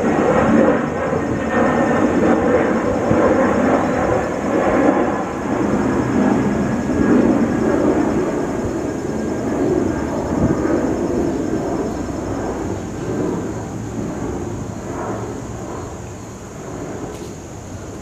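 A loud, low rumble that rises and falls and slowly fades over the last several seconds.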